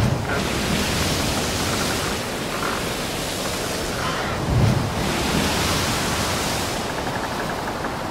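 A steady rushing noise that swells twice, each swell opening with a low thud.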